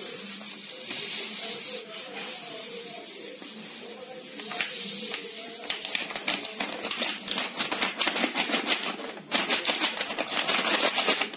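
Dry turbo yeast granules pouring from a packet onto the surface of a barrel of molasses wash, a hissing patter of many tiny impacts that grows denser and more crackly about halfway through.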